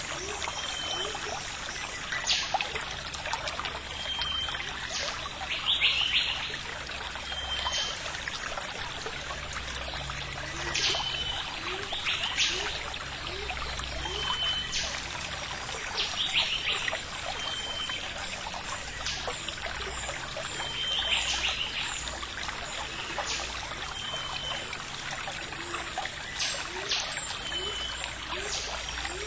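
Forest ambience: a steady hiss like running water, with a short high note repeating every two to three seconds and scattered sharp chirps.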